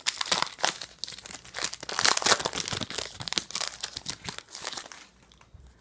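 Foil Pokémon trading card booster pack being torn open and crinkled by hand, a run of sharp crackles and tearing that dies away about five seconds in.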